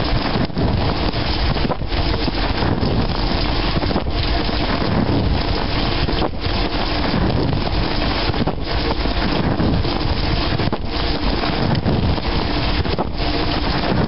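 Dishwasher wash cycle heard from inside the tub: water spraying and splashing steadily, with the hiss dipping briefly every second or two.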